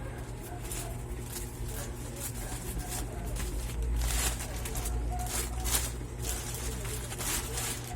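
Plastic parcel packaging rustling and tearing as it is opened by hand, in short irregular scrapes and crinkles.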